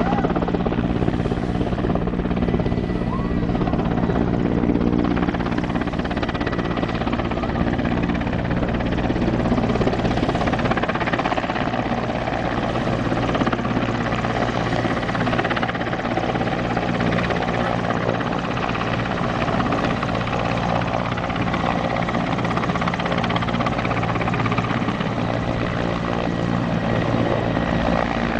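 Mil Mi-14 naval helicopter running at close range, its main rotor and twin turboshaft engines giving a steady deep beating drone with a faint high whine over it.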